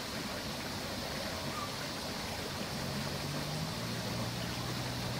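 Steady outdoor background hiss with no clear bird calls, joined about three seconds in by a low steady hum like a distant engine, which drops slightly in pitch a second later.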